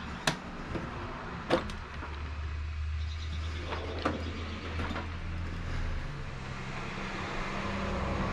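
A vehicle engine running steadily nearby, growing louder over the second half. Several sharp clicks and clinks of small parts being handled stand out above it.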